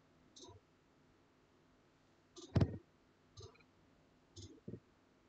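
A few separate computer mouse clicks, the loudest about halfway through, while scrolling through a PDF document.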